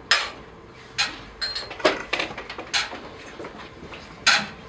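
A handful of separate sharp knocks and clacks, roughly a second apart, from objects being handled on a stage.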